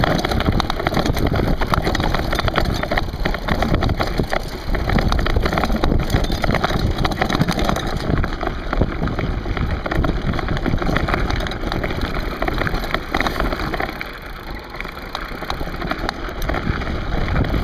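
Mountain bikes rolling down a rocky singletrack: a constant rattle and crunch of tyres over loose stones and the bike and camera shaking, over a low rumble, easing for a moment near the end.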